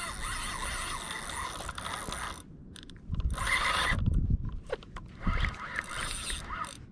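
Fishing reel mechanism running while a hooked fish is fought. It runs steadily for the first couple of seconds, then breaks off and returns in short spells with low handling thuds.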